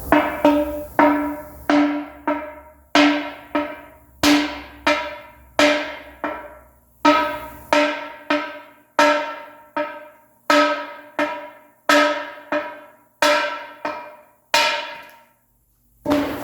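Hammer blows on a bent wheel rim, about two dozen strikes at one or two a second, each ringing out with a metallic tone, as the bend is beaten straight. A short pause comes before one last blow near the end.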